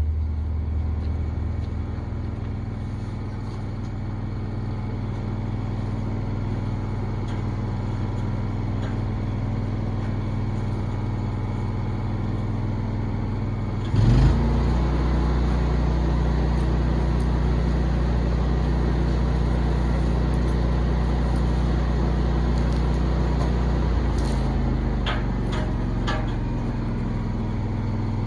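An engine running steadily; about fourteen seconds in it jumps to a louder, different speed and holds there.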